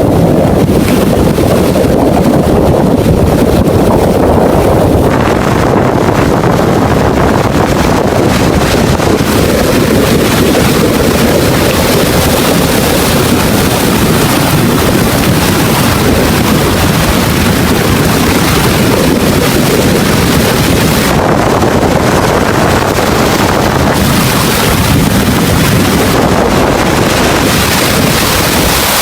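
Strong wind buffeting the microphone over the steady rush of heavy sea waves.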